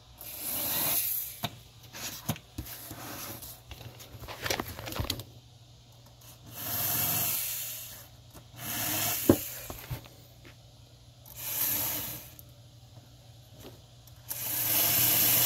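Several short swells of rubbing, whirring noise with a few light clicks as the N-scale locomotive is handled, then, about a second before the end, its small electric motor starts and runs with a steady whir, the locomotive being driven in reverse.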